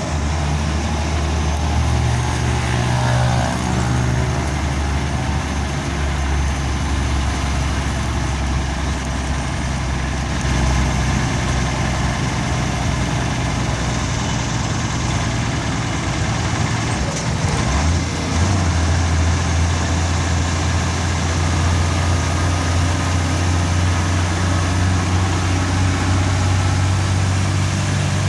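Turbocharged bus engine running steadily under way, a deep low drone. There is a brief break about two-thirds of the way through, after which the engine note sits a little higher.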